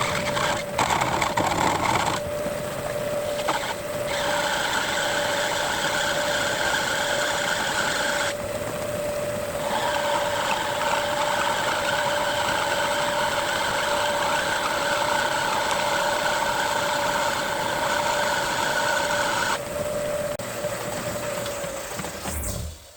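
Metal lathe running with a steady whine while turning down brass stock. The cutting noise comes in about two seconds in, drops out for a moment around eight seconds, then carries on until about twenty seconds. The machine stops just before the end.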